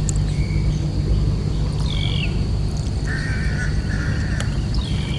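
Small boat engine running steadily at low revs. Over it a bird repeats a short falling call every few seconds, and there is a buzzy call about three seconds in with a thin steady insect whine.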